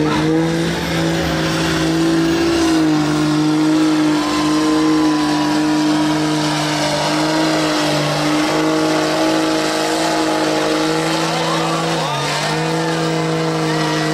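Pickup truck's engine held at high revs under full throttle as it churns through a deep mud pit, the tyres spinning and throwing mud. The pitch stays fairly steady, dips briefly about twelve seconds in, then comes straight back up.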